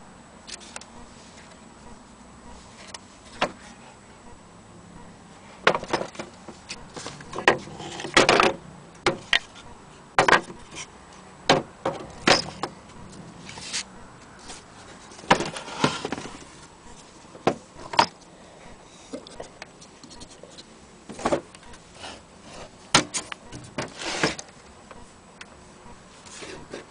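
Irregular clicks, taps and knocks as a wooden wall clock case and its small fittings are handled. The sharpest knocks bunch together around 8 seconds in and again around 16 and 24 seconds in.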